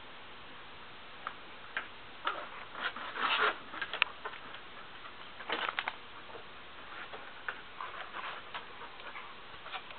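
An Old English Sheepdog puppy and an older dog scuffling on a wooden deck: irregular clicks and short scrapes, busiest about three seconds in and again about six seconds in, with scattered ticks after.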